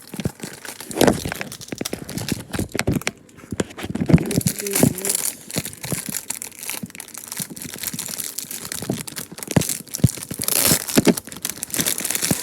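Plastic wrapping of a microwave popcorn package crinkling and tearing as it is pulled open by hand, in an irregular run of crackles and snaps.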